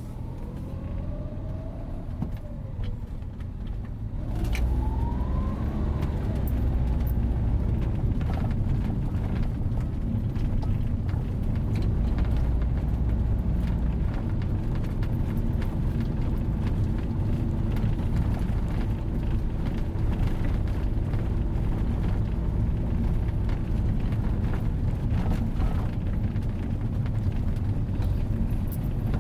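Car driving: the engine's pitch rises twice in the first six seconds as it picks up speed, then a steady low road rumble at cruising speed.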